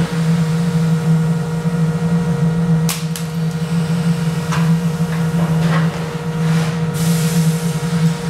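A frozen polymer Glock 17 magazine, cold-soaked to −60 °C and loaded with dummy 9mm rounds, hits a concrete floor after a drop of about seven feet: a sharp clack about three seconds in, with a second smaller clack right after it. A few lighter knocks follow, and a steady low machine hum runs underneath.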